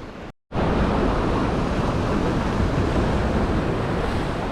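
Steady rushing of wind on the microphone and surf at the jetty, heaviest in the low end, after a brief gap of silence about half a second in.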